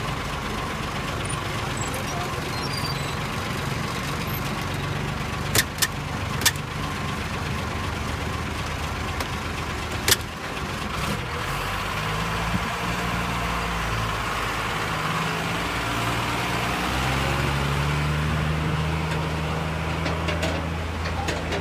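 Diesel engine of a flatbed tractor-trailer truck running at idle, with a few sharp knocks around six and ten seconds in. From about twelve seconds the engine note shifts, and at about seventeen seconds it rises to a stronger, steady drone as the truck pulls away.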